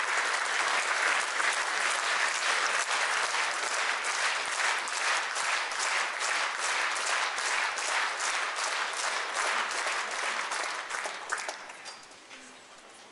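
Large audience applauding. The clapping settles into an even beat for a few seconds, then dies away near the end.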